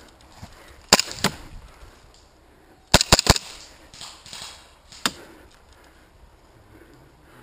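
Airsoft guns firing single shots as sharp snaps: two about a second in, a quick cluster of three or four near three seconds, and one more a little after five seconds.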